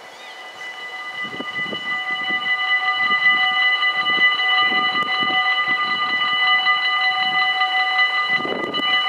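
Dutch AHOB level-crossing warning bells ringing continuously as the crossing activates, several bells at different pitches sounding together. The ringing grows louder over the first three seconds, then holds steady.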